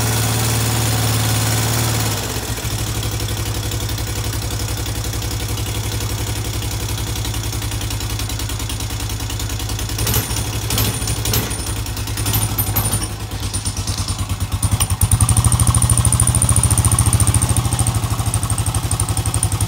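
2005 Honda Foreman 500 ATV's single-cylinder engine idling steadily. A few sharp clicks come about ten seconds in, and the engine sounds louder in the last few seconds.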